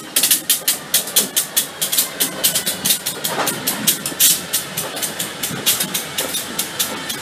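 New England Central Railroad diesel locomotives rolling slowly past, their wheels clacking sharply over rail joints and switches several times a second, with the engines running underneath.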